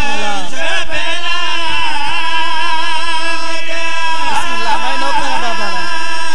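Male voices singing a slow nauha, a Shia mourning lament, into a microphone: long held notes that waver and slide downward, with no spoken words.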